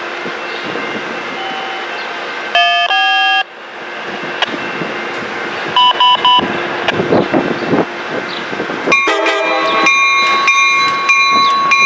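Train horns over the steady rumble of a train: a short blast about two and a half seconds in, a few quick toots around six seconds, then a long held horn chord from about nine seconds on.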